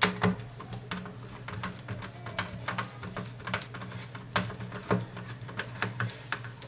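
Screwdriver driving screws that fasten a TV's power board into its metal chassis: a run of irregular small clicks and scrapes, the first one the loudest, over a steady low hum.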